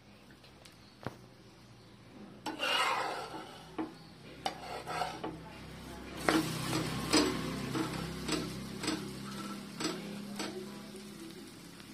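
Spatula scraping and tapping on a nonstick frying pan as an egg omelette is lifted and flipped, over a soft sizzle of frying. A burst of scraping comes a couple of seconds in, then a string of about six sharp scrapes and taps in the second half.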